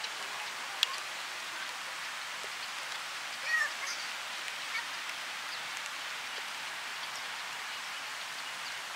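Steady hiss of moving water. A short bird chirp about three and a half seconds in and a sharp click just under a second in stand out above it.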